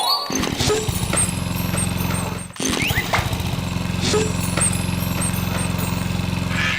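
A steady engine-like drone with a low buzz, broken off briefly about two and a half seconds in and then running on.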